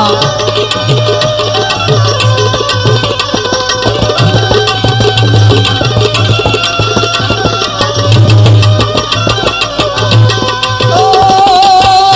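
Instrumental interlude of a live Gujarati devotional bhajan: rapid tabla drumming over sustained melodic accompaniment, with a sustained wavering melody line coming in near the end.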